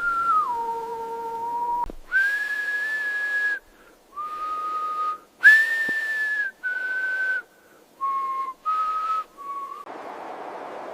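A slow whistled tune of about nine clear, held notes, each lasting half a second to a second and a half, stepping up and down in pitch with short breaks between them. A soft steady hiss of wind comes in near the end.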